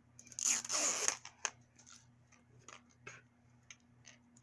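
A rustle of small plastic toy packaging being handled for about a second, then a series of light, scattered clicks of small plastic pieces.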